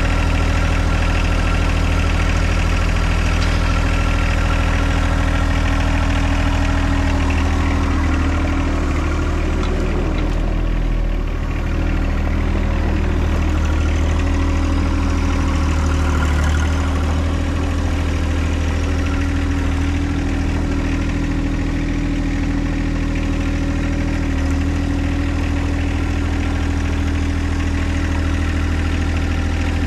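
John Deere 2025R compact tractor's three-cylinder diesel engine running steadily at low revs, with small changes in its note around the middle.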